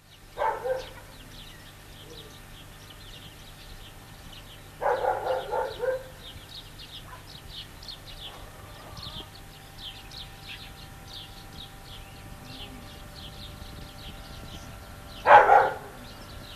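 A dog barking in short bouts: one bark near the start, a run of about four barks around five seconds in, and another bark near the end.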